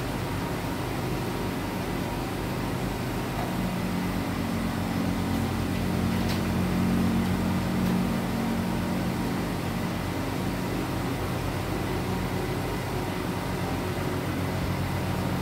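Steady low machine hum over background hiss, growing slightly louder in the middle and easing off again.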